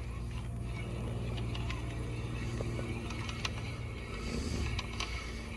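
Spinning reel on a catfish rod being handled and wound, giving scattered short mechanical clicks over a steady low hum.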